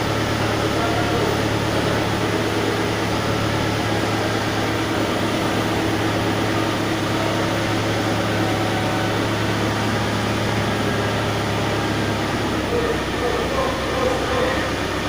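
A vehicle engine running steadily, with a low hum; its tone shifts about thirteen seconds in.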